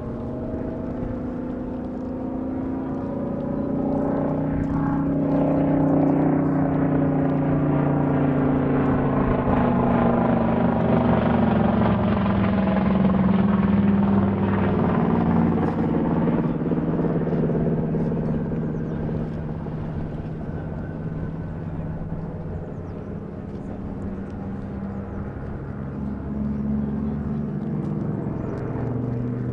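Saab B17A dive bomber's Pratt & Whitney Twin Wasp radial engine and propeller droning overhead in a display pass. It grows louder toward the middle, drops in pitch as the plane goes by, then eases off a little.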